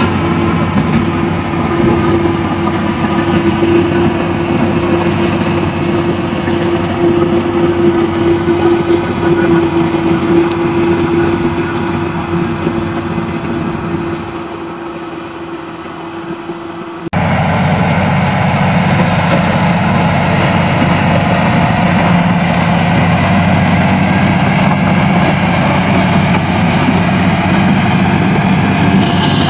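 Komatsu D85E crawler bulldozer working, its diesel engine running steadily. About halfway through the sound cuts abruptly to a lower, steady engine note.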